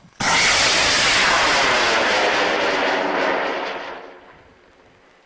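High-power amateur rocket's solid-propellant motor igniting and lifting off: a sudden loud roar that holds steady for about three and a half seconds, then fades away over about a second as the rocket climbs.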